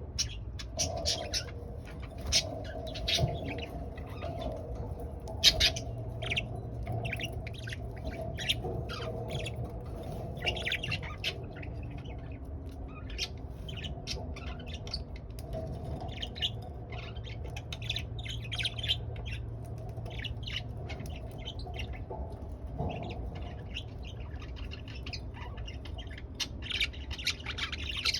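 Pet budgerigars chirping and chattering in many short, sharp calls throughout, over a steady low hum.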